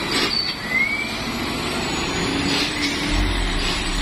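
Heavy diesel cargo truck engine working under load on an uphill climb, with a deep rumble that swells in about three seconds in as a loaded truck pulls past.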